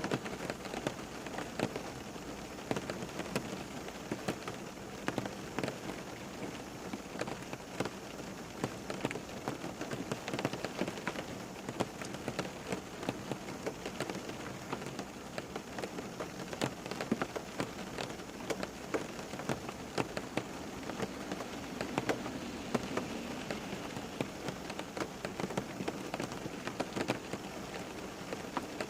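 Steady rain falling, with many individual drops ticking sharply on a hard surface over an even hiss.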